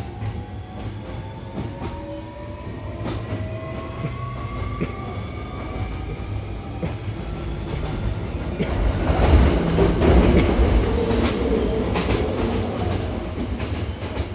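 Hankyu Kyoto Line electric train heard from inside the car as it accelerates away from the station. The traction motors whine in several tones that rise steadily in pitch, over wheel rumble and the clicks of rail joints. About nine seconds in, the running noise grows louder.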